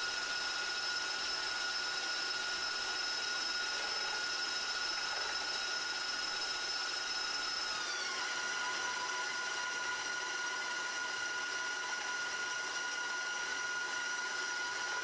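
Three KitchenAid stand mixers running together while creaming butter, a steady high motor whine. About eight seconds in, one motor's pitch drops a little and holds there.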